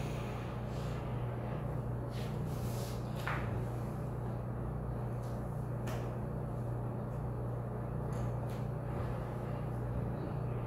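A steady low hum throughout, with a few faint, brief scrapes or rustles over it.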